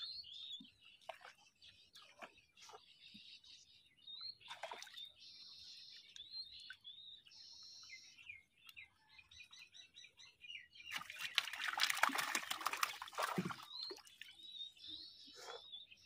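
Water splashing and dripping as a fishing net with fish in it is hauled up over the side of a wooden boat. There is a louder splashing rush about eleven seconds in that lasts a couple of seconds. Small birds chirp repeatedly throughout.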